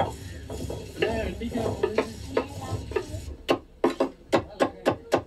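A knife chopping okra on a cutting board: a quick, even run of sharp strokes, about three or four a second, starting a little past halfway.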